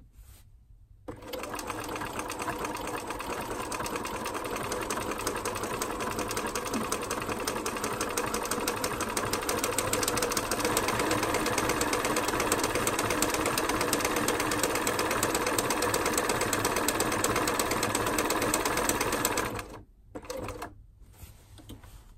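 Bernina 1230 (badged Riccar RCM 1230) sewing machine stitching through fabric: a rapid, even needle clatter over the motor. It starts about a second in, gets a little louder about halfway, and stops shortly before the end, followed by a brief second burst.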